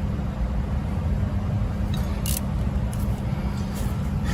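Steady low rumble with a constant hum, like a motor running, and a couple of brief hissy flicks about two seconds in.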